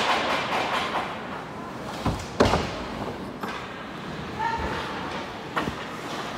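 Ice hockey play at rinkside: a run of sharp knocks and bangs from sticks, puck and boards, the loudest about two and a half seconds in, over the steady hubbub of a large rink.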